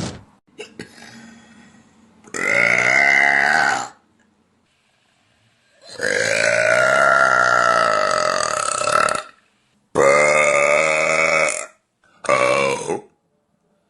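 A woman belching four times. First comes a burp of about a second and a half, then a long drawn-out one of about three seconds, then a shorter one and a brief one near the end. A short sharp click comes right at the start.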